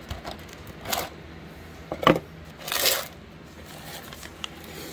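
Parts of a valve spring and retainer kit being handled: a few separate small clicks and clinks with some rustling, the sharpest click about two seconds in.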